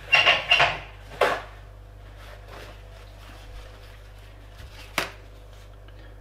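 Kitchen paper towels being handled and laid on a wooden cutting board: a few crisp rustles at the start, then two sharp knocks, about a second in and about five seconds in.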